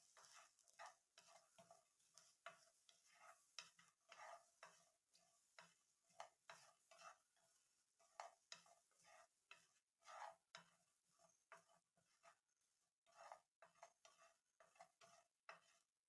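Faint, irregular scraping and tapping of a wooden spatula stirring sliced garlic around a nonstick frying pan as the garlic dry-roasts, a few strokes a second.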